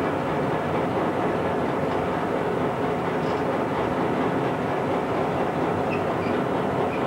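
DSB class MH diesel locomotive running along the track, heard from inside its cab: a steady, unbroken noise of engine and wheels on rail.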